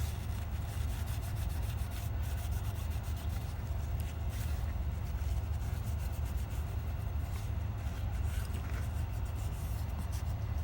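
A Kimwipe wet with rubbing alcohol rubbed around the edges of an iPhone 8's frame to clean off leftover screen adhesive: a run of short, irregular rubbing strokes over a steady low hum.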